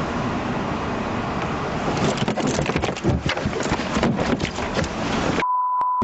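Steady vehicle rumble, then a rapid run of crackling clicks and rustles. The sound then cuts out suddenly to a short steady high beep.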